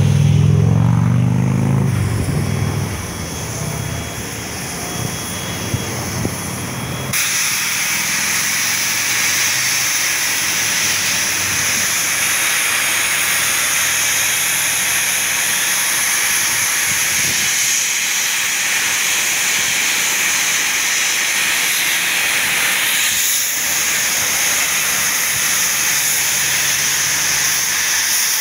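Steam locomotive 5917, a NSW 59 class 2-8-2, working past with a loud low drone. About seven seconds in, a loud steady hiss of steam starts suddenly and keeps going as it blows off from the top of the boiler.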